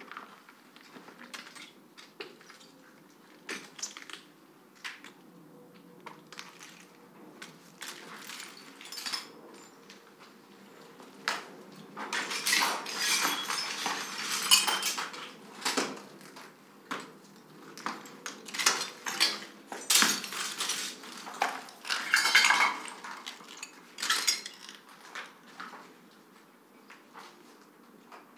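Bowls, pots and utensils clinking and clattering in scattered knocks, with a busier stretch of clatter about twelve seconds in and another about twenty seconds in.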